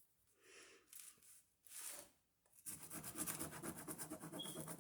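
Ballpoint pen scribbling on paper. A few faint short strokes come first, then rapid back-and-forth scribbling runs on from about two and a half seconds in. The pen is being tried to see whether its dried ink flows again.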